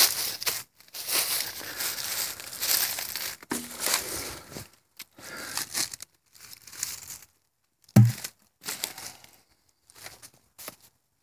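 Dry leaves and gravel crinkling and rustling underfoot while walking, mixed with handling noise from the phone. The noise comes in irregular bursts, with one low thud about eight seconds in.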